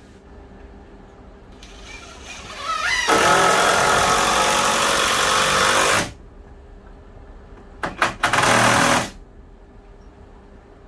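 Cordless drill driving screws into the base of a wooden post. The motor winds up in pitch into a loud run of about three seconds that stops abruptly. Later come two quick blips and a second run of about a second.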